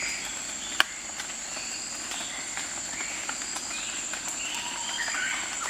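Outdoor nature ambience: a steady, high insect trill with short bird chirps scattered over it, and one sharp click just under a second in.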